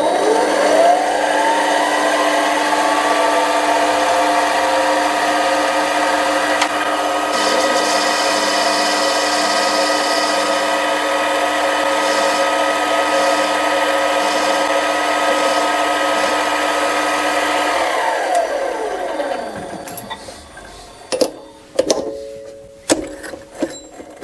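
Benchtop mini metal lathe motor spinning up with a rising whine, then running steadily while the rim of a brass 45-90 rifle case held in the chuck is turned down. It winds down with a falling whine about 18 seconds in, followed by a few clicks and knocks.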